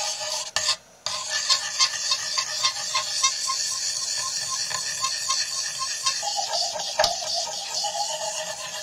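Steel knife blade stroked back and forth over a 750-grit diamond sharpening stone wet with a water, soap and cornstarch honing gel, giving a steady wet scraping with a short break about a second in. This is the honing stage that files off the burr raised by the coarser stone.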